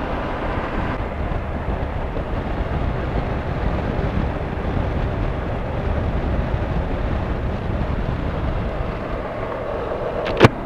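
Honda NC700X parallel-twin motorcycle being ridden: steady wind rush over a helmet microphone with the engine's low drone beneath. There is a sharp click near the end.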